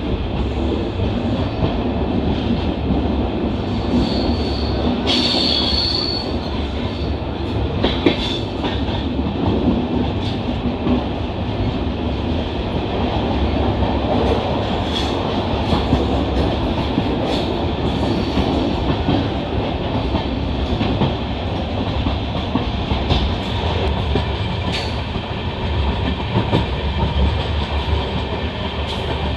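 Passenger train coach running on the track: a steady rumble of wheels on rail, with scattered clicks from rail joints and a brief high wheel squeal about five seconds in.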